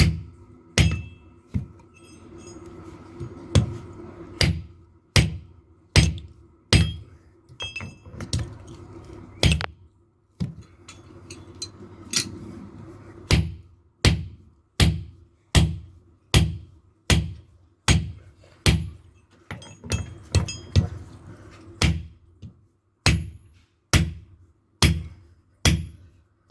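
Blacksmith's hand hammer striking steel on an anvil, about thirty ringing blows roughly a second apart with a brief pause about ten seconds in, over a steady low hum.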